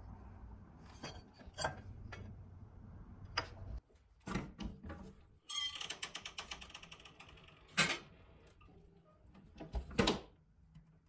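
A sandblast cabinet's metal door and latch being worked: scattered clicks and knocks, a run of fast rattling clicks, then a loud clank and a double clank near the end as the latch lever is thrown.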